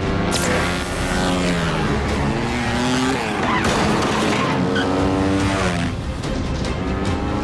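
Dirt bike engines revving hard, their pitch climbing and dropping again and again as the bikes accelerate and shift, with a rough tyre skid about halfway through.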